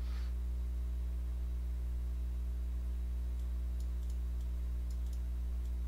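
Steady low electrical hum with a stack of overtones, from the microphone's recording chain. A few faint clicks come between about three and five seconds in.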